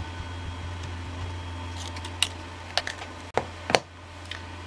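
An ink pad being dabbed onto a thin metal cutting die to ink it: faint pats at first, then a few sharp taps and clicks from about two seconds in, the sharpest just before the end. A steady low hum runs underneath.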